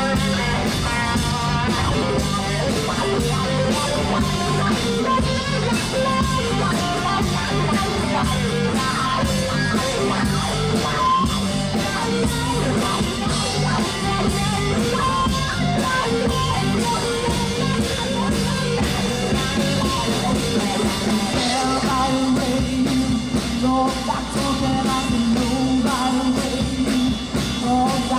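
Rock and roll music with singing, electric guitar and a drum kit keeping a steady beat; the bass line moves to a higher chord about two-thirds of the way through.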